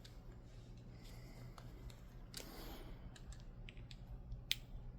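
Faint small metallic clicks and a brief scrape as a Dom Diamant disc-detainer lock and a hand pick are handled, with one sharper click about four and a half seconds in.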